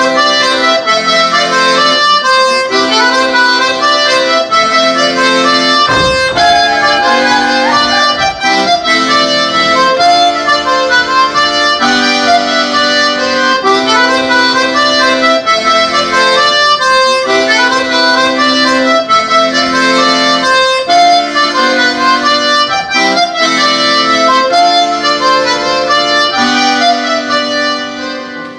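Accordion playing a traditional Breton dance tune: a quick repeating melody over held bass chords, ending near the close.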